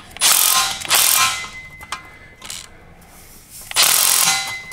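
Power gun run in two bursts of about a second and a half each, driving the bolts of the V-band clamps on an exhaust system.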